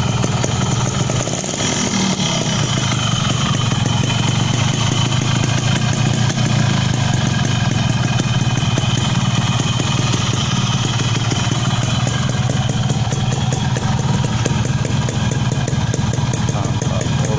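Yamaha RX-King's 135 cc two-stroke single-cylinder engine idling steadily.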